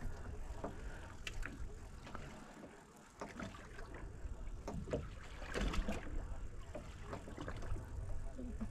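Steady low rumble of wind and water around a small fishing boat, with scattered light knocks and clicks.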